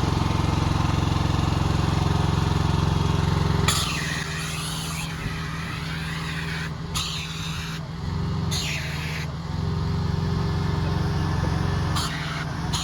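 Pressure washer engine running steadily. About four seconds in the gun trigger is pulled and a long hissing burst of high-pressure spray starts, with the engine note dropping under the load. Shorter spray bursts follow after about eight seconds and near the end, as chemical is applied through an injector on the gun.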